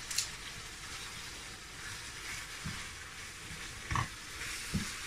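Chicken mince frying in oil in a non-stick pan, a steady sizzle, with a few scrapes and knocks of a wooden spatula stirring the spices in, the loudest about four seconds in.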